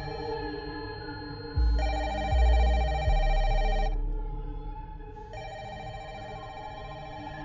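Mobile phone ringtone sounding in repeated bursts of about two seconds, over background music. Deep low booms sound from about a second and a half in to about three seconds.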